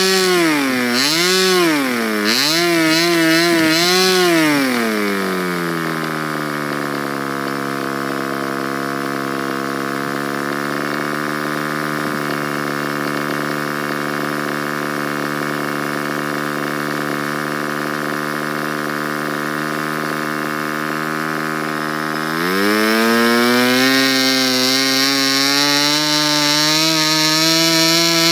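Fox .15 model aero engine running as a diesel on a Davis Diesel head, spinning a 9x4 propeller. It is throttled up and down several times at first, drops to a steady idle about five seconds in, then opens up again about twenty-two seconds in, its speed climbing steadily to the end.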